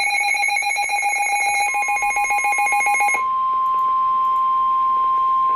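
Emergency alert attention tones: a rapidly pulsing, buzzing alarm tone, joined about a second and a half in by a steady single tone near 1 kHz. The buzzing cuts off about three seconds in, leaving the steady tone, like the 1050 Hz warning alarm tone that precedes a National Weather Service warning message.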